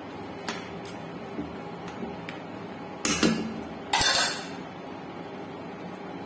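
A cooking spoon clinking lightly against the side of a frying pan several times, then two louder clanks about three and four seconds in, over a steady hiss from the pan of simmering chicken broth.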